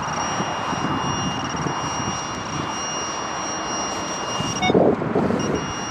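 Strong wind buffeting the microphone, with a metal detector's steady high electronic tone sounding over it that breaks off for a moment near the end.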